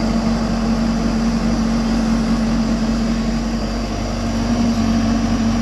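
Hyundai 215 crawler excavator's diesel engine running steadily with a constant low hum as the machine works.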